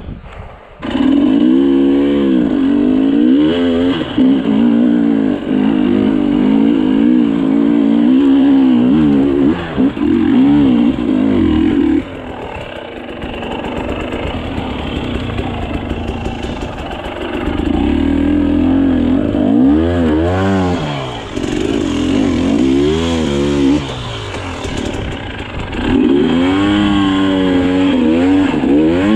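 KTM 300 XC-W two-stroke dirt bike engine running as the bike climbs over rocky ground, coming in sharply about a second in. The revs rise and fall in repeated blips, easing off to a lower, quieter run for several seconds in the middle before sharp revving again near the end.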